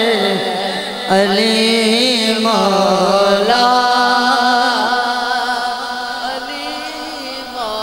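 A male naat reciter singing a line of an Urdu manqabat in long drawn-out notes. The pitch bends and wavers at first, then settles into one long held note from about three and a half seconds in.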